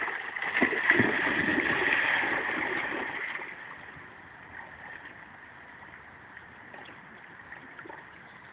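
A dog splashing through shallow water and plunging into deeper water, loud for the first three seconds or so, then fading to faint small splashes and lapping as it swims away.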